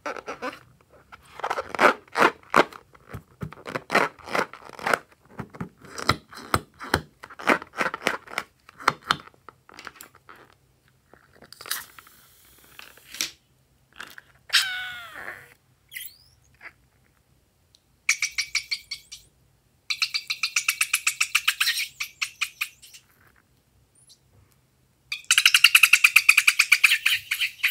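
Rubber balloon squeaking as fingers squeeze and rub it: many short irregular squeaks at first, a falling squeal around the middle, then three runs of rapid chirping squeals in the second half, the loudest near the end.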